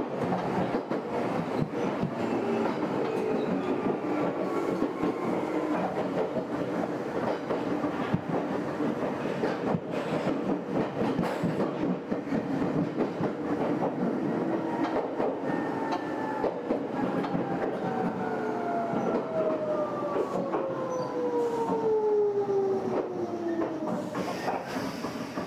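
Meitetsu electric train running, with the regular clickety-clack of wheels over rail joints. For the last ten seconds or so, the traction motors whine in a tone that falls slowly and steadily in pitch as the train slows.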